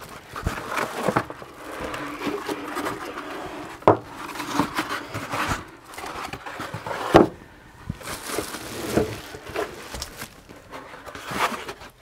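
Moulded paper-pulp packaging being pulled off a polythene-wrapped appliance: scraping and rustling of pulp against plastic, with a few sharp knocks, the loudest about seven seconds in.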